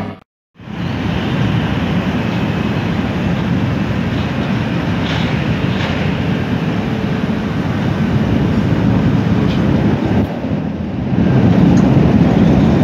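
Steady jet-engine rumble from a Boeing 777F freighter taxiing at idle, heard across the airport apron. It follows a brief dropout at the very start and grows louder about eleven seconds in.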